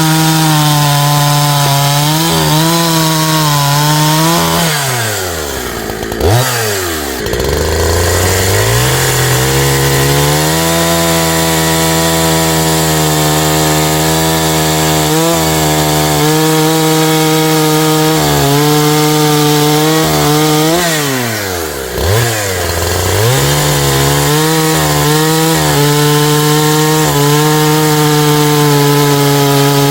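372 chainsaw's two-stroke engine running at high revs through cuts with a full-comp chain on a light bar. Twice, about 5 and 21 seconds in, the engine speed drops sharply and then climbs back up.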